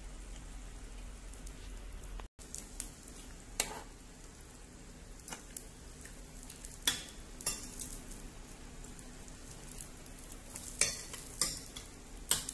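Noodle soup bubbling at a hard boil in an electric multi-pan, a steady hiss, while a fork stirs the noodles and clinks against the pan about eight times.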